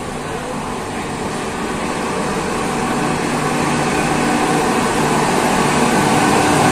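Running noise of two passenger trains moving side by side on parallel tracks, heard at an open coach door, with a steady fan-like hum from an electric locomotive's cooling blowers. The sound grows steadily louder as the locomotive comes alongside.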